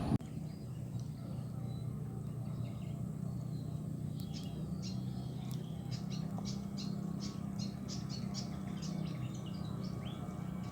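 Small birds chirping in quick, repeated short high notes from a few seconds in, over a steady low hum.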